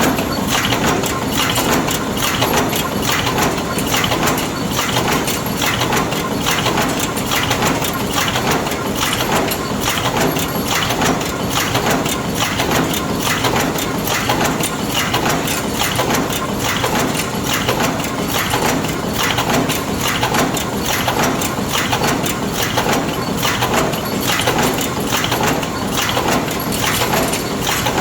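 Four-station bolt forging machine running at speed, forming wedge anchor bolts: a steady, fast rhythm of metal strokes and clatter over the hum of the machine.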